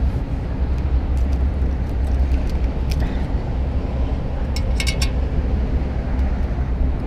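Strong wind buffeting the microphone as a steady low rumble, with a few light clicks about three and five seconds in.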